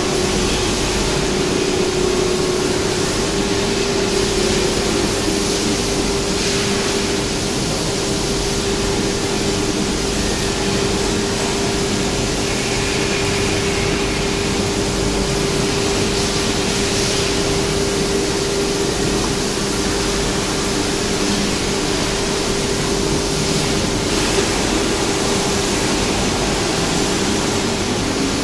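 CNC nesting router's spindle routing a wood panel: a steady whining tone over a steady rush of machine and dust-extraction noise.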